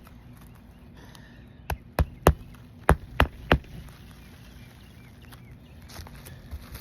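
Hammer driving roofing nails into an asphalt shingle roof: six sharp strikes in two quick groups of three, about two seconds in.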